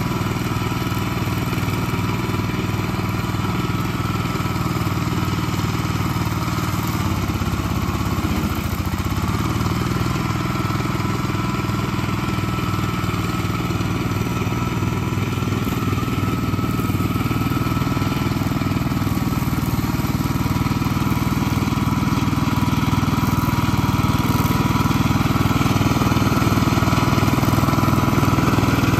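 Circa-1970 Gravely walk-behind tractor running with its brush hog attachment, the engine pulling steadily while the stacked rotary blades cut brush. The engine note dips briefly about eight seconds in, and the sound grows somewhat louder toward the end as the machine comes closer.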